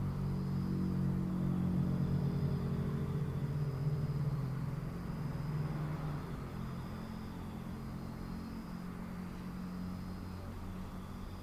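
A motor vehicle's engine humming at low speed close by, loudest in the first few seconds and then fading as it moves away. A faint high-pitched trill repeats every second or two in the background.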